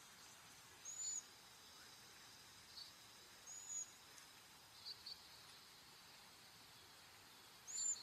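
Cedar waxwing calls: three very high, thin whistles, about a second in, at about three and a half seconds, and loudest near the end, with a few shorter, fainter notes between them.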